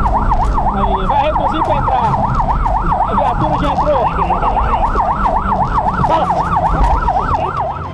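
Police car siren in a fast yelp, its pitch sweeping up and down about four times a second, with low engine and road rumble underneath.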